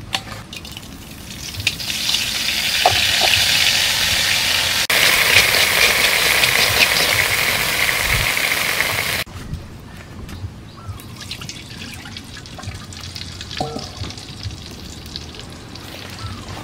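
A hot wok sizzling loudly for several seconds, cutting off abruptly, then a quieter stretch with light scattered crackles.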